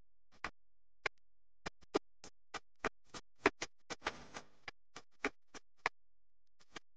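Light background music of short, separate plucked notes, about two to three a second, with a brief busier passage about four seconds in.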